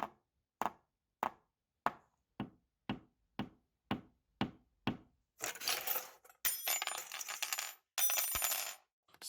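About ten sharp taps, evenly spaced a little under two a second, followed by three bursts of rattling, crackling noise, each lasting about a second.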